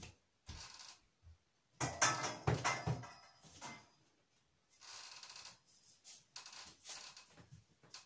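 Plastic hula hoop being handled, clattering and rattling with a quick run of knocks about two seconds in, and softer rustles before and after.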